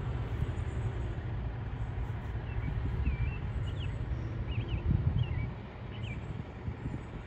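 Low, uneven rumble of wind on the microphone, with a handful of short, quick bird chirps in the middle.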